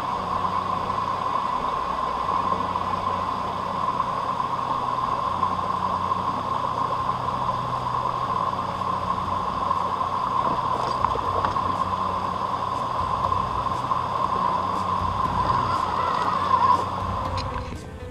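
Steady whine of an RC scale crawler's 55-turn brushed motor and gearbox running under way, over a hiss of noise. It cuts off sharply near the end.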